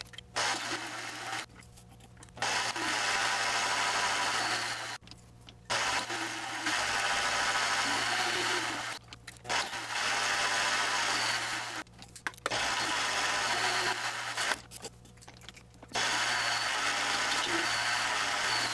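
Mini metal lathe cutting a taper on a mild steel part with a carbide tool: a harsh, noisy cutting sound over the motor's steady hum, in passes of a few seconds each, broken by about five short, quieter gaps.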